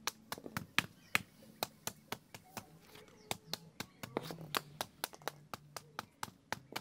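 Machete chopping into a nipa palm fruit head to split off the individual fruits: a quick, steady run of sharp hacks, about three to four a second.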